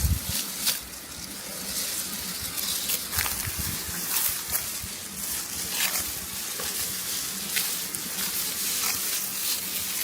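Rice stalks and dry straw rustling and crackling as they are handled during a hand harvest, with many short, irregular crackles over a steady hiss.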